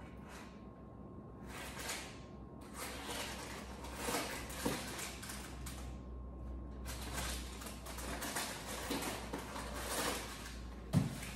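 Rummaging in a kitchen cabinet: items shuffled and moved about on a shelf, rustling with light clatter in several stretches, and a sharp knock near the end.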